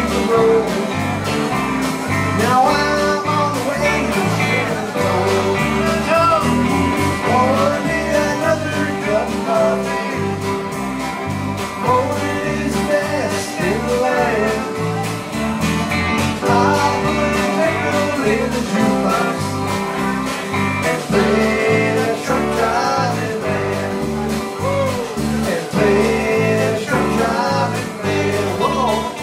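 Live country band playing: electric guitars, electric bass and drums with a man singing lead.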